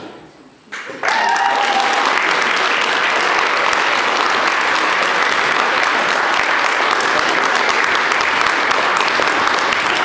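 Music fades out, and about a second in a hall audience breaks into steady applause that continues.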